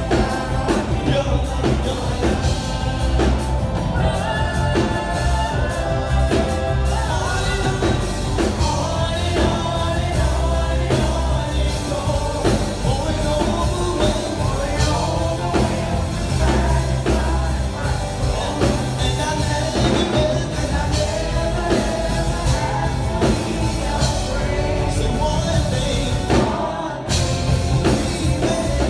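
Rock-pop song with a sung vocal, steady bass and a beat.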